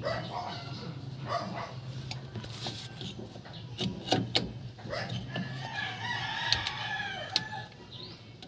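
A rooster crowing, its longest call starting a little past the middle and lasting about two seconds, with shorter calls earlier. A few sharp metallic clicks sound around it.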